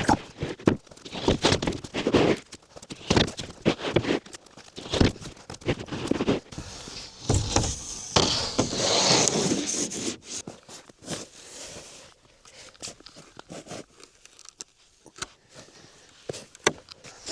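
Irregular knocks and scrapes, with a longer scraping rush about seven seconds in, fading to scattered light ticks near the end.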